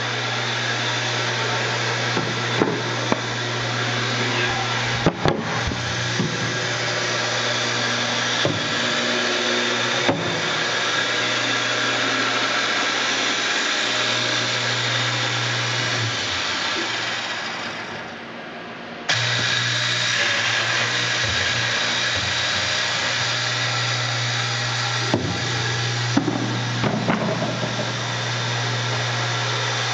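Drilling-head motors of an OMAL CNC cabinet-door hinge insertion machine running steadily with a low hum and occasional light knocks. The sound sinks about two-thirds of the way through, then comes straight back on.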